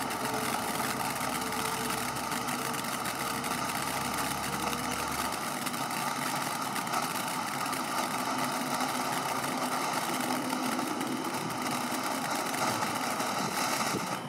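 Gold-spark firework fountain (Golden Flower) burning with a steady hissing rush and a dense fine crackle.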